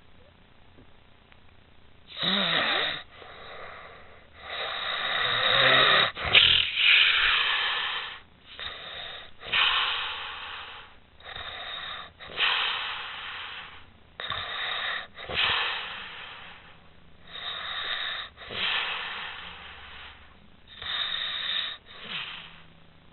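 A sleeping woman snoring loudly, a run of noisy breaths beginning about two seconds in and following one another every second or two.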